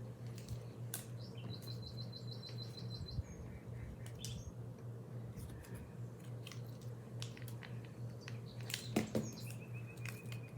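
A bird singing rapid trills: one high trill about a second and a half in, and a lower, longer trill starting near the end. Scattered light clicks and a steady low hum sit underneath.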